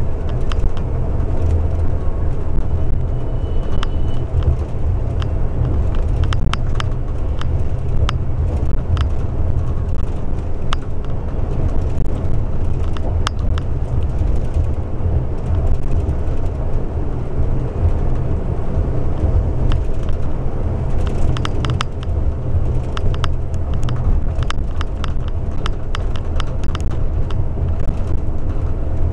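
Scania bus driving along at steady speed, heard from inside the cabin: a continuous low engine and road drone. Short sharp clicks are scattered through it, most closely packed about three quarters of the way through.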